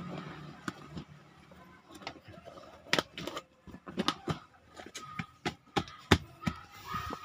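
Irregular clicks and soft knocks of a rubber car floor mat being pressed and shifted into place by hand, a few louder knocks scattered among them.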